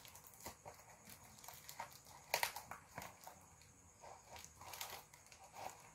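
Scissors snipping and cutting through packing tape on a cardboard box, a scatter of faint snips and crinkles, the loudest about two and a half seconds in.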